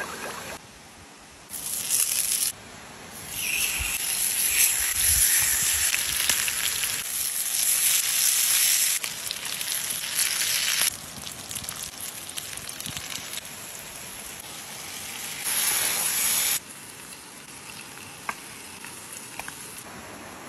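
Salmon steaks sizzling on a hot stone slab over embers: a loud, high hiss that starts and stops abruptly several times, the longest stretch lasting about eight seconds. Between the stretches, a softer steady rush of running water.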